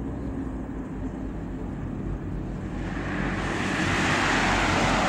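Road traffic: a low steady engine rumble, then a car driving past close by, its tyre and engine noise swelling about three seconds in and peaking near the end.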